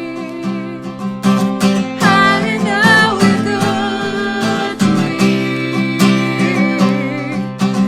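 Music: a strummed acoustic guitar with a voice singing held, wavering notes.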